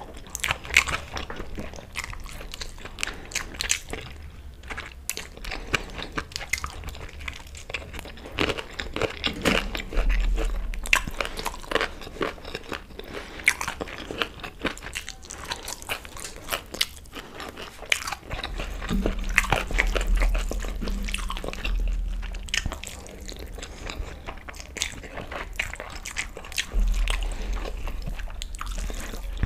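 Close-up eating sounds of chicken curry with rice eaten by hand: many crisp crunching bites and chewing clicks, with a low rumble coming in now and then.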